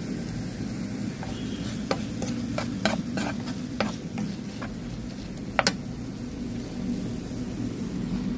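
A spatula stirring diced onion and tomato as they sauté in a frying pan, with a string of sharp clicks and taps of the spatula on the pan, mostly between about two and six seconds in, the loudest a double tap near the middle. A steady low hum runs underneath.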